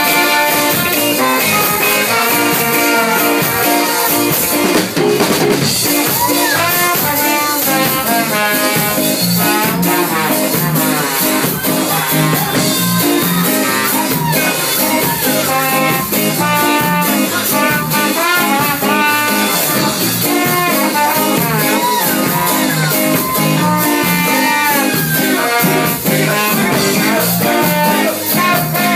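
Live band playing a song, with guitar and brass among the instruments.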